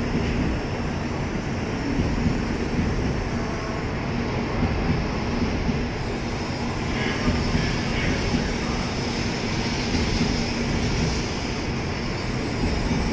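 N700-series Shinkansen train moving past along the platform: steady wheel and running noise with a faint low hum.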